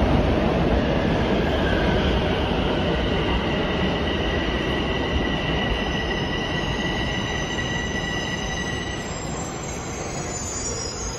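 Toronto Rocket subway train pulling into the station and slowing: a heavy wheel-on-rail rumble that gradually fades. A steady high whine runs through most of it and stops about nine seconds in as the train nears a stop, with fainter higher tones after.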